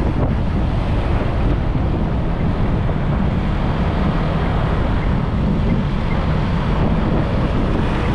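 Steady, heavy wind buffeting on the microphone of a moving motorbike, with the rumble of engine and road noise underneath.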